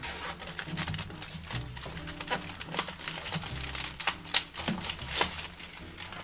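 Handling and opening the packaging of a pack of century eggs: irregular clicks, taps and crinkles of packaging being pulled apart.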